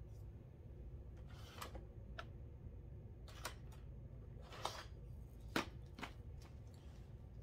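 A few faint, separate taps and clicks as art supplies, including a paintbrush, are handled on a tabletop, over a low steady hum. The sharpest click comes about two thirds of the way through.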